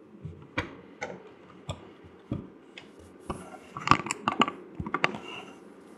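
Scattered small clicks and taps, most of them in a cluster about four to five seconds in.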